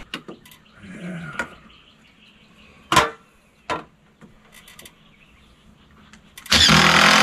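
Cordless drill driving a screw through a metal rafter tie into the wood for about a second near the end, after two sharp knocks around the middle.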